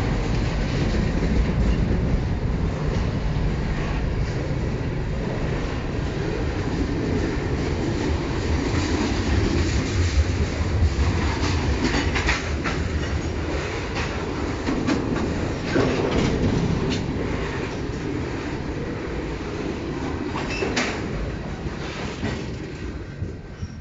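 CN freight cars rolling past: a steady rumble of steel wheels on the rails with clickety-clack and sharp clanks over the joints. It fades in the last couple of seconds as the last tank car goes by.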